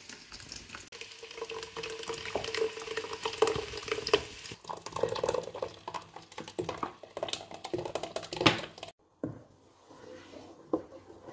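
Sour milk poured from a plastic bottle into a pot of hot roux, a steady pour with splashing and crackling as it hits the hot fat. It cuts off suddenly about nine seconds in, and quieter stirring with a wooden spoon follows.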